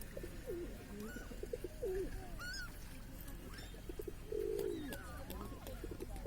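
Several birds calling over one another in short, bending calls, with a harsher, louder call about four and a half seconds in, over a low steady rumble.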